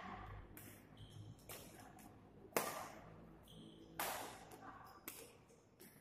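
Badminton rally: rackets striking the shuttlecock about once a second, five sharp hits that echo in the hall, the loudest about two and a half seconds in, with brief squeaks from the players' shoes between hits.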